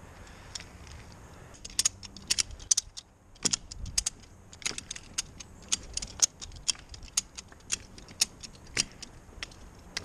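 Steel ratchet of a 2-inch ratchet strap clicking as it is worked by hand: a run of sharp, irregular clicks, some in quick clusters, starting about two seconds in.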